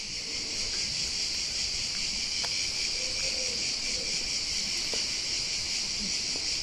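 Insect chorus droning steadily at a high pitch, without a break.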